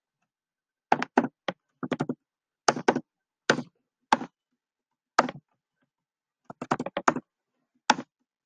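Irregular keystrokes on a computer keyboard: short sharp clicks, single or in quick pairs, with pauses of up to a second and a half between them.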